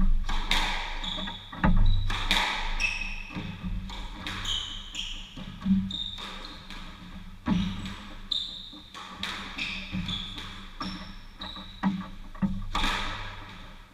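A squash rally: sharp cracks of racket on ball and ball on the walls, ringing around the enclosed court, with short high squeaks of court shoes on the hardwood floor between the shots.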